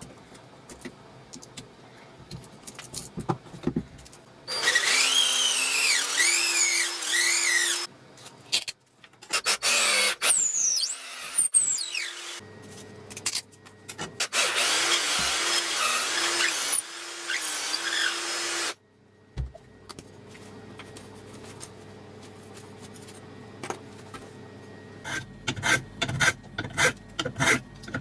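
Makita cordless drill spinning a sandpaper-wrapped dowel inside the bored hole of a zebrawood block, sanding the hole wider with 80-grit paper. It runs in three bursts of a few seconds each, and its motor whine rises and falls as the trigger is worked. Near the end comes a quick run of short scraping strokes of a small hand plane on wood.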